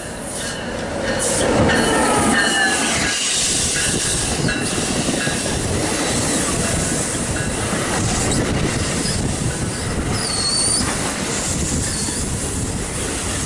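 A train running close by: the rumble and clatter of its wheels on the rails swells in about two seconds in and stays loud. Short high-pitched wheel squeals come near the end.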